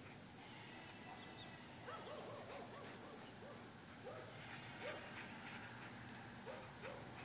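Faint, steady high-pitched insect chirring, with a few short animal calls, mostly in pairs, about two, five and seven seconds in.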